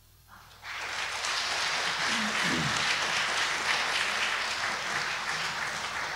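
Audience applauding, starting about half a second in and beginning to fade near the end.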